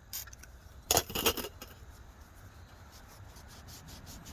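A few light metallic clinks and rattles, bunched together about a second in, as of small metal parts being handled or set down; then only a faint steady background hum.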